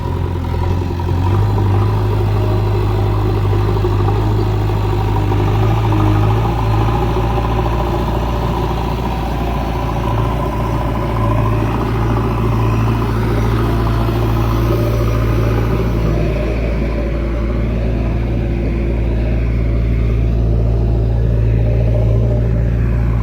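Diesel engine of a heavy machine running steadily at a constant speed.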